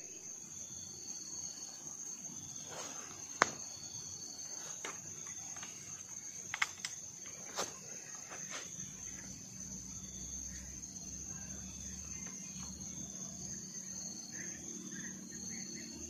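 Insects chirping in a steady high-pitched chorus, with a handful of sharp clicks between about three and eight seconds in.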